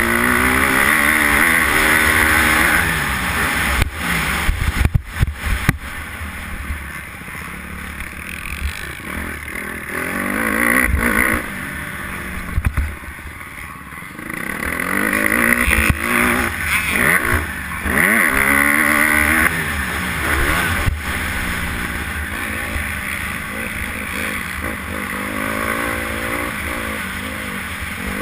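Honda motocross bike engine revving up and falling away again and again as the rider accelerates and backs off around a dirt track, heard close from an on-board camera with wind noise. A few sharp thumps break in, the loudest about four to six seconds in.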